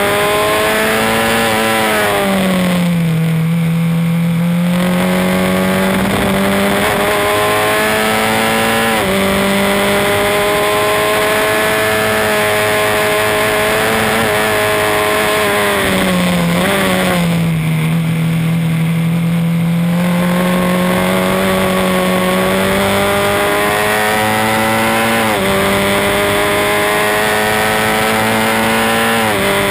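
Formula Ford 1600 race car's engine, a Ford Kent four-cylinder, heard from the cockpit at racing speed: it climbs in pitch under full throttle, drops sharply at each upshift, and twice falls away to a low steady note as the driver lifts and brakes for a corner before pulling hard again.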